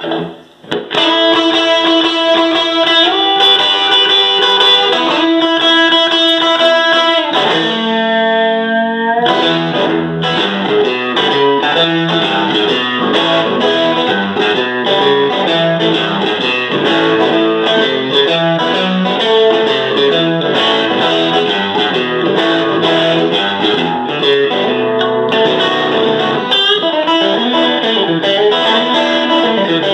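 Fender Stratocaster electric guitar played through a Fender Hot Rod Deluxe tube combo amp. The playing starts about a second in with held chords and notes, there is a downward pitch glide about eight seconds in, and then a long run of busy, fast-changing notes.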